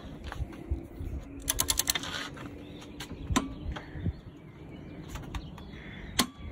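Metal hand tools handled on a workbench: scattered clicks and knocks, with a quick run of about eight clicks about one and a half seconds in.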